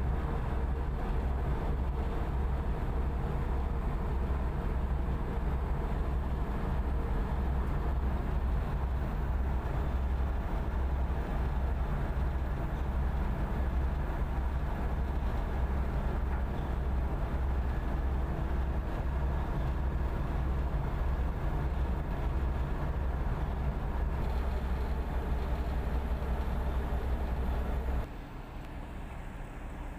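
Tugboat's diesel engine running steadily under towing load, with a heavy low rumble. Near the end the sound drops suddenly to a quieter, thinner level.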